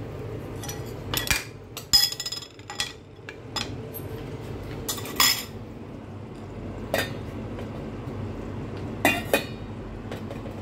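Scattered sharp clinks and knocks of kitchenware, about five spread out, the loudest about two seconds in, over a steady low hum.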